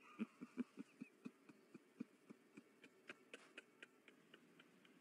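Faint, even ticking, about four ticks a second, the first few a little louder than the rest.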